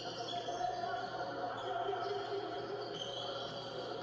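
Basketball game sound from a TV broadcast: the ball bouncing during play in an echoing sports hall, under a steady low hum.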